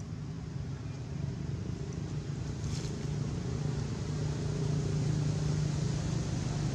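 A motor engine running steadily with a low hum, getting slightly louder partway through.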